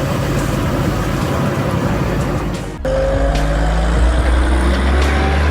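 Heavy vehicle engine running. About three seconds in the sound cuts to a deeper, louder engine rumble whose pitch rises slowly.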